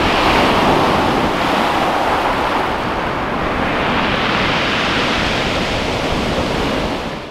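Waves breaking and washing up a shingle beach: a swell of surf at the start, a second about three and a half seconds in, fading out at the very end.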